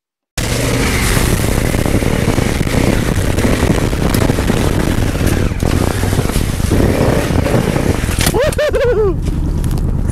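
Honda Africa Twin DCT's parallel-twin engine revving hard as the rear wheel spins through a muddy puddle in a slide turn, throwing up water. About eight seconds in, the revving breaks off as the bike goes down onto its side.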